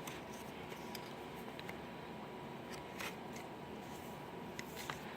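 Faint paper rustling and a few light clicks as the pages and flaps of a lift-the-flap picture book are turned and opened.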